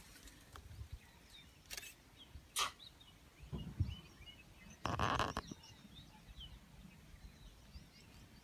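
Small birds chirping in the background, with a few clicks and knocks and a short rustling burst about five seconds in.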